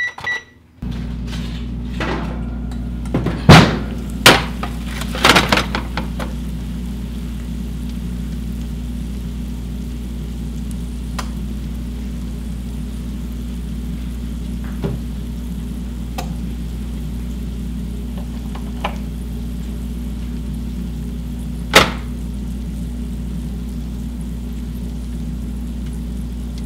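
Steady low hum with occasional sharp knocks and clatters, the loudest a cluster a few seconds in and a single knock near the end.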